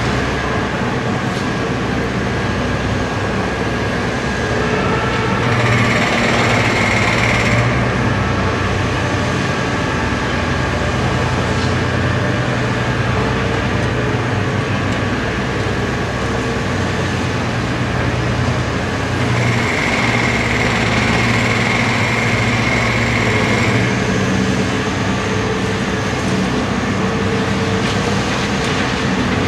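Diesel engine of a Liebherr R 964B hydraulic crawler excavator running steadily under working load. Twice, for about two seconds and then about four, the engine note rises together with a high hydraulic whine as the digging gear works.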